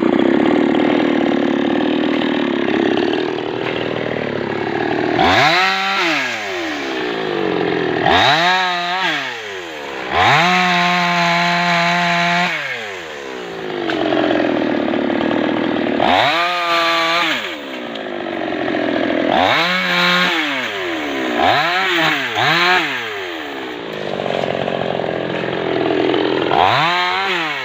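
Chainsaw cutting wood, its engine revved up to full speed about eight times. One rev is held for about two seconds; between revs the pitch falls back to a lower, rougher note.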